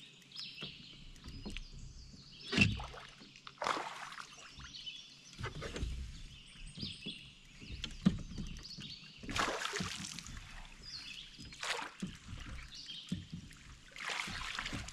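Water splashing and sloshing around a kayak, with irregular knocks and rattles against the hull, as a hooked smallmouth bass is fought and brought aboard. The sharpest knocks come about two and a half seconds in and about eight seconds in.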